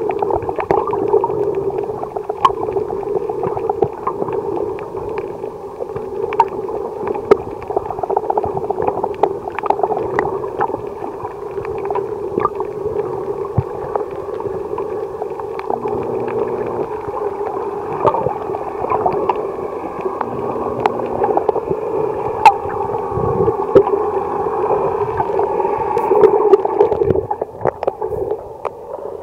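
Muffled underwater noise picked up through an action camera's waterproof housing: a steady rushing, gurgling water sound with scattered sharp clicks throughout.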